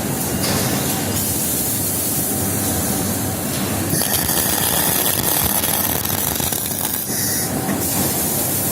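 Welding arc from an automated two-station welding machine, a steady crackling hiss that changes character about four seconds in and again near the end.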